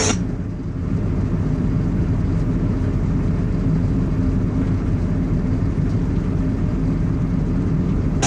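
Steady low rumble of a car being driven, engine and tyre noise as heard inside the cabin.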